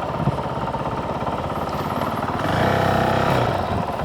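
Motorcycle engine running at low road speed, picked up by a mic on the rider's helmet breath deflector, with a steady pulsing note. It swells louder for about a second a little past halfway through.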